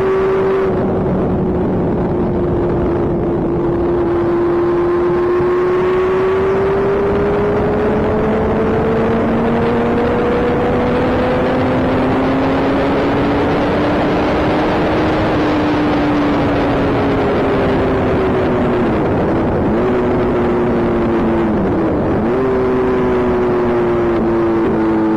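Motorcycle engine running at road speed, its pitch slowly rising as the bike gains speed, then dipping briefly twice near the end. Wind rushes over the microphone throughout.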